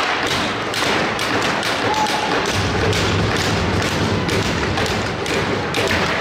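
Ice hockey play in an arena: rapid, irregular knocks and taps of sticks and pucks on the ice and boards, over a steady hiss of arena noise.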